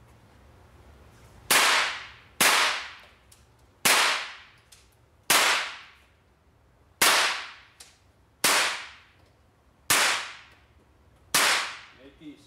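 Eight single shots from an AR-15-style rifle fired one at a time, roughly one every second and a half, each loud crack followed by a short echo off the indoor range walls.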